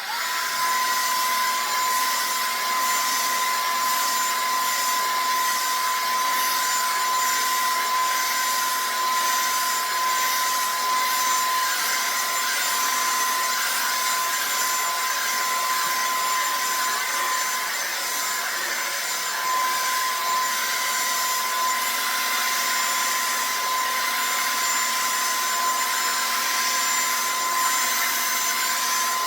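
Revlon One-Step hair dryer brush running steadily: a constant rush of blown air with a steady high whine from its motor.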